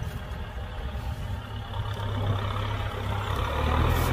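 Kubota M6040 SU tractor's four-cylinder diesel engine running steadily with a low hum, getting a little louder near the end.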